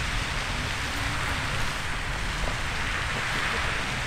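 Riverside Geyser venting across the river: a steady rushing hiss of steam and spray, with a low rumble underneath.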